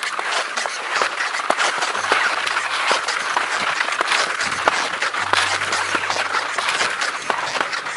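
Skis and ski poles crunching and scraping over crusty snow while skiing at a brisk pace: a dense, steady crackle full of sharp little clicks.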